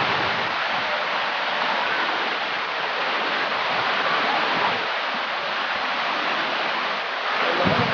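Steady rush of a waterfall, continuous falling water without a break.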